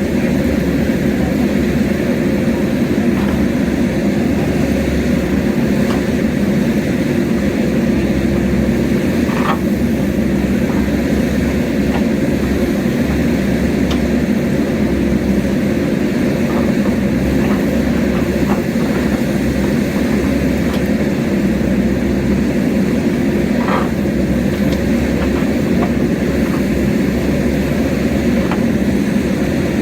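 JCB backhoe loader's diesel engine running steadily under work, with scattered faint clicks and clanks.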